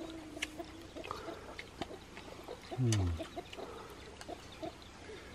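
Chopsticks stirring leafy greens in broth in a metal pot: scattered light clicks of wood on metal and small liquid swishes. About three seconds in, a short low call falls in pitch.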